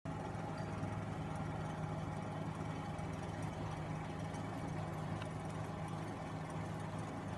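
An engine idling, a steady low hum that holds even.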